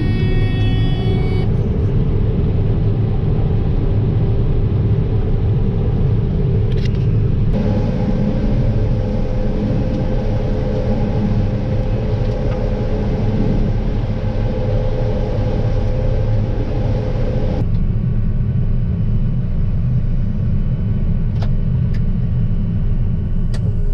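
Combine harvester running steadily while harvesting, a deep continuous rumble. A higher machine hum joins about eight seconds in and drops away near eighteen seconds.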